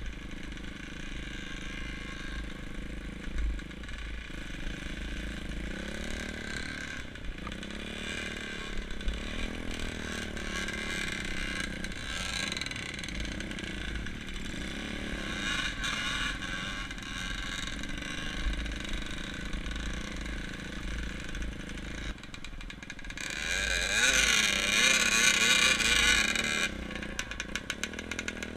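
Off-road motorcycle engines running and revving, their pitch wavering up and down, with a louder, closer stretch of revving about 23 seconds in that lasts a few seconds.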